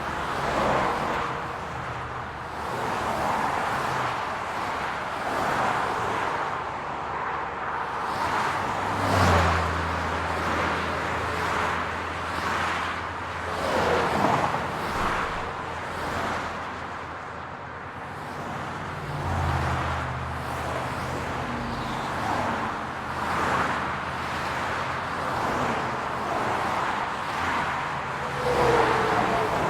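City road traffic: cars passing one after another with tyre noise swelling and fading every few seconds. A steady low engine hum comes in about nine seconds in, fades, and returns for most of the second half.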